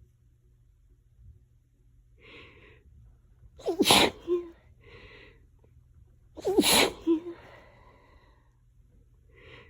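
A person sneezing twice in an allergy sneezing fit, each voiced sneeze about two and a half seconds apart and preceded by a quick in-breath, with another in-breath near the end.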